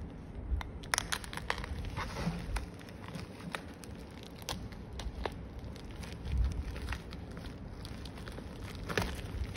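Plastic mailer bag crinkling and tearing as it is cut open with a small metal blade, with scattered sharp crackles and clicks.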